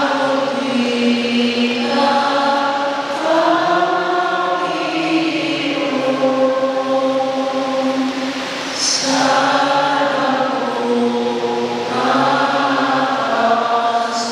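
A group of voices chanting slowly in long held notes, phrase after phrase with short breaths between.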